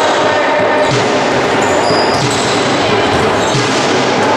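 Handball bouncing on a wooden sports-hall floor, a dull thud about every half second to a second, over loud, steady, echoing hall noise with voices.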